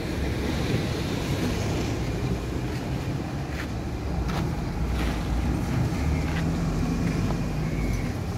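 Wind buffeting the microphone outdoors: a low, uneven rumble with a few faint ticks in the middle.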